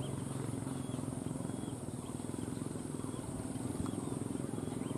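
A pack of hunting dogs barking and baying all at once in a dense, unbroken chorus.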